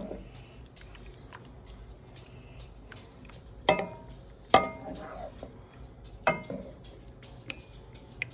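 Wooden spoon stirring bite-size chicken pieces through sweet chili sauce in a nonstick skillet: soft wet squishing, with four sharp knocks of the spoon against the pan, the last three around the middle.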